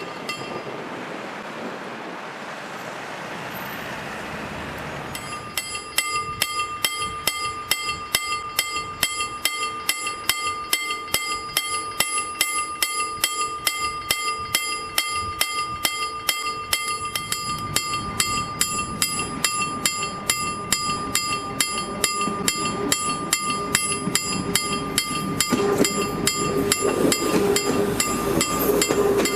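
A train rumbles past for the first few seconds. Then, about five seconds in, a KLD-40 electric level-crossing bell starts ringing in fast, even strokes, the warning that the pedestrian crossing is closing. A low rumble builds under it during the second half.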